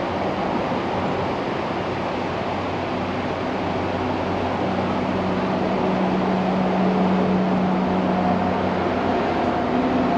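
Echo SRM-266T string trimmer's small two-stroke engine running steadily, with a low hum that grows stronger for a few seconds midway.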